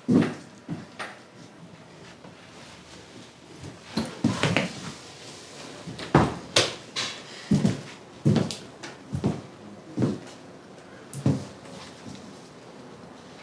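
Irregular knocks and clatters of objects being handled, about a dozen spread over the stretch with a quieter gap of a couple of seconds about two seconds in.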